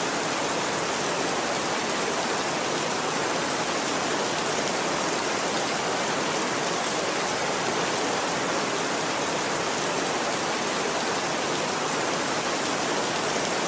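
Steady, even rainfall with no breaks; no thunder claps or cricket chirps stand out.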